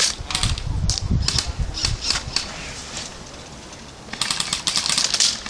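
Airsoft rifle firing: scattered sharp clicks among low thumps of movement, then about four seconds in a rapid run of shots lasting about a second.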